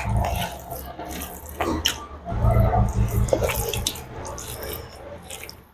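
Close-miked wet eating sounds: a person chewing and smacking on soft, saucy food, with moist clicks and squelches. There are two heavier bouts of chewing, one at the start and one about two seconds in, and the sound tails off near the end.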